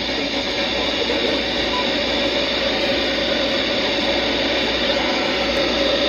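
Radio static: a steady hiss from a radio receiver, with faint muffled audio under it.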